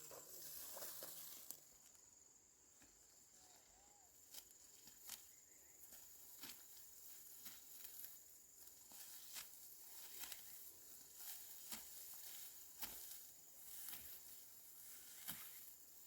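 Faint crisp snaps and rustles at irregular intervals, roughly one a second, over a steady faint high-pitched whine.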